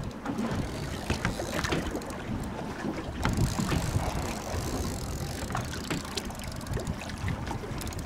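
Wind buffeting the microphone over open sea, with choppy water slapping and splashing around the kayaks.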